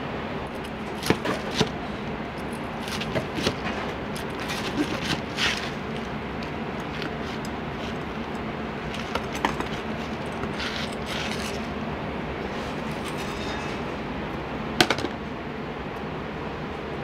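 Diner kitchen clatter: scattered clinks and knocks of dishes and utensils being handled over a steady background hum, with one sharper knock near the end.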